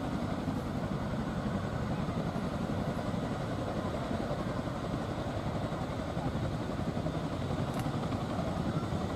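Boeing CH-47F Chinook on the ground with its twin turboshaft engines running and tandem rotors turning: a steady, dense rumble with a fast flutter from the blades.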